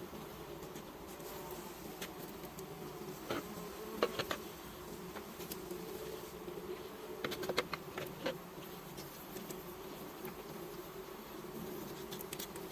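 Swarm of honey bees buzzing around the hive in a steady drone, with a few sharp clicks and taps about a third of the way in and again past the middle.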